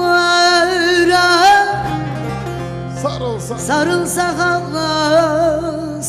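Turkish folk music: a melody of long held, wavering notes, turning to sliding ornamented phrases about halfway through, over a steady low accompaniment.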